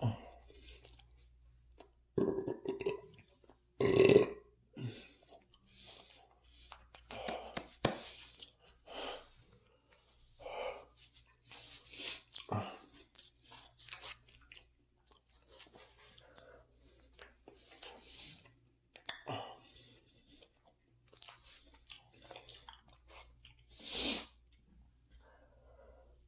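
A man chewing and crunching food close to the microphone, with two loud burps from a stuffed stomach about two and four seconds in, and a short breathy sound near the end.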